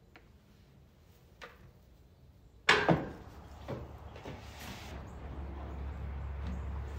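A horse stall door knocking twice sharply about three seconds in, followed by a few lighter knocks, with a low steady rumble building toward the end.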